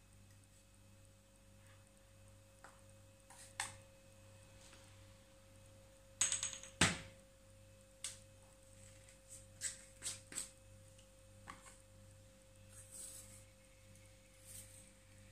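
Scattered clicks and taps of small spice jars and shaker lids being handled while dried spices are added to chicken, the loudest cluster of clicks about six to seven seconds in. Under them a faint steady hum with a single held tone.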